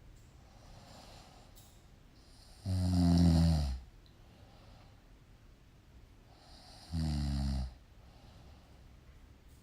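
Snoring: two loud snores about four seconds apart, each about a second long, with faint breathing between them.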